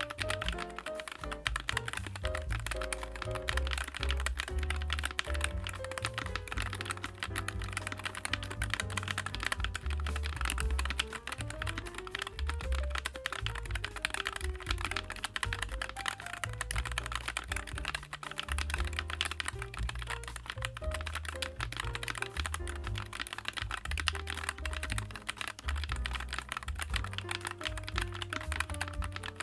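Continuous typing on a NuPhy Air96 low-profile wireless mechanical keyboard, a dense run of key clicks over background music.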